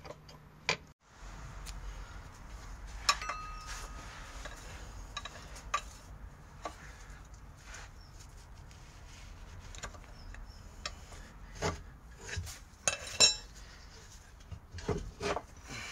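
Metal clinks and scrapes as a pry bar levers a VW T5's inner driveshaft off the gearbox stub axle and the shaft is worked along the splines by hand. One strike about three seconds in rings briefly, and a few louder clinks come near the end.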